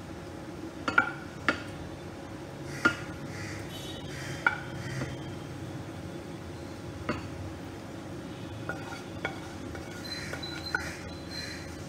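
A spatula scraping and clinking against a pan and a serving bowl as cooked pointed-gourd curry is spooned out: about eight sharp, scattered clinks over a steady low hum.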